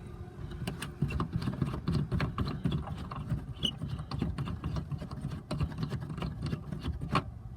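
Irregular small clicks and taps of screws being worked out of a 2011 Chevy Malibu's tail light housing, over a low steady rumble.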